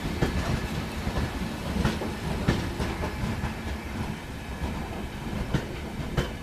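Passenger express coaches rolling past on the rails: a steady low rumble with sharp clacks of the wheels over rail joints, some of them loud.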